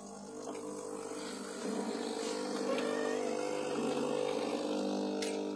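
Sboly espresso machine's vibration pump running with a steady electric buzz, which gets louder about two seconds in as it pushes water through the coffee capsule.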